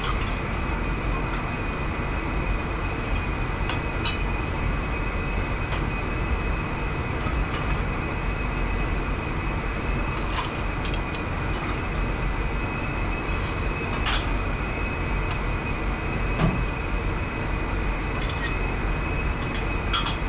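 Steady running noise of a commercial kitchen's fans and equipment, with a constant high whine. A few light clinks of utensils on a steel bowl and plate sound now and then.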